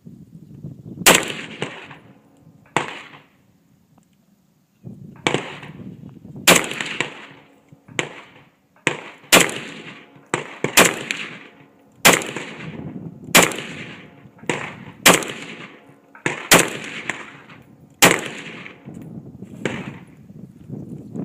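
Sig 556 rifle in 5.56 NATO fired in slow semi-automatic shots, each a sharp crack with a short ringing tail, loud shots coming about every second and a half, with fainter shots between them and a brief pause near the start.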